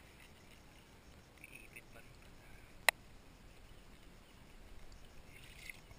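Quiet beach ambience with faint distant voices, broken by one sharp click about three seconds in.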